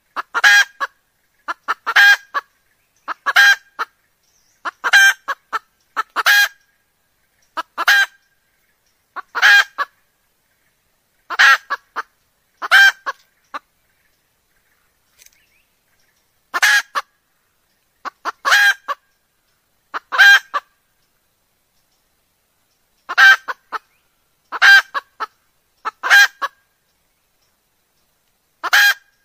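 Red junglefowl hen calling: short pitched clucks, often in quick pairs, repeated about every second and a half, with a few longer pauses.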